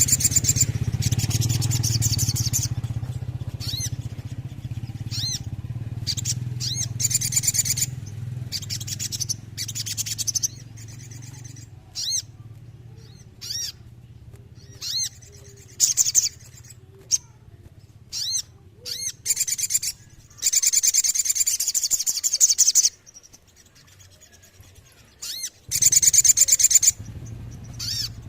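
Sogon sunbird singing: high, sharp notes repeated in quick runs, broken by bursts of fast rolling trills. A low steady hum sits underneath for much of it, dropping away about two-thirds of the way through and returning near the end.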